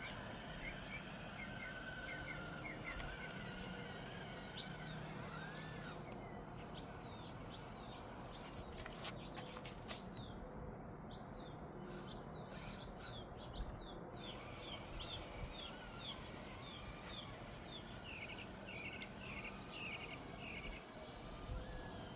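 Small birds chirping: short, quick chirps repeated in runs, over a steady outdoor background hiss, with a few faint clicks in the middle.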